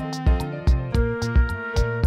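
Background music with a steady beat and sustained string-like notes.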